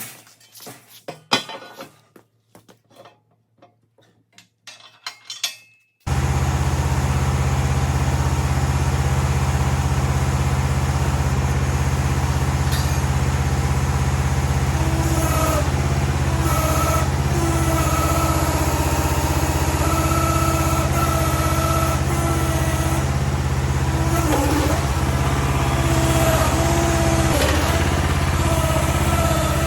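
A few clicks and knocks, then from about six seconds in the mini-excavator's small gasoline engine running steadily and loud. In the second half a higher whine comes and goes several times over the engine.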